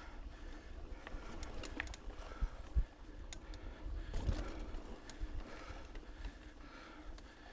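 KTM Lycan 274 mountain bike rolling fast over dirt singletrack: a steady low rumble on the camera microphone, with the bike rattling and clicking over roots and bumps and a couple of heavier knocks about three and four seconds in.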